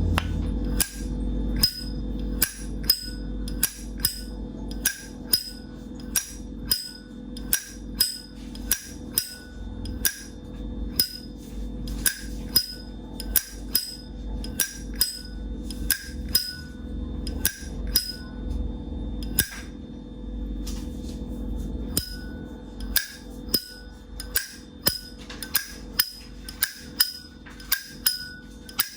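Vintage brass Zippo lighter's hinged lid being flicked open and snapped shut over and over, a sharp metallic click about every half second, each with a brief ring. There is a short pause about two-thirds of the way through.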